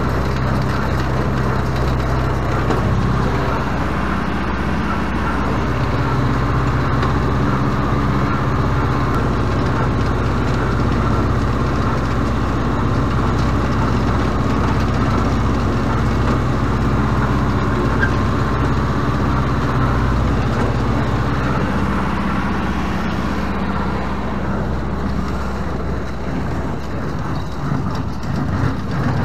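Renault 656 tractor engine running steadily under load, heard from on board, while it drives a Renault baler through the PTO shaft during baling.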